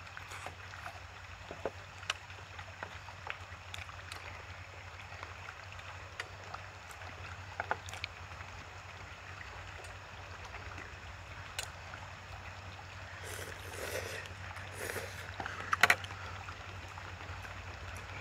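Eating sounds: chewing and light clicks of chopsticks and wooden spoons against plastic takeout containers, with a few louder eating sounds near the end. Under them runs a steady outdoor hiss and low hum.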